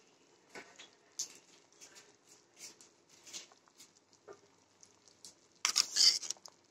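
Mutton gravy boiling in a pot: scattered soft pops at irregular intervals as bubbles burst through the thick masala. A louder burst of sputtering noise comes about five and a half seconds in.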